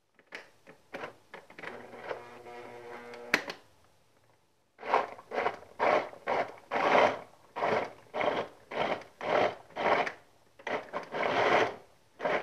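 Countertop blender with a plastic jar of raw onion, tomato, garlic and a little water for tomato sauce: a few clicks, a short steady motor hum, then the motor run in quick repeated bursts, about two a second, as it starts to chop the vegetables.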